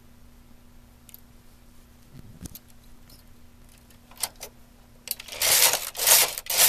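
A few faint clicks of a hand tool on the metal needles, then, about five seconds in, the carriage of a bulky knitting machine is pushed across the needle bed: a loud, noisy sweep that surges several times.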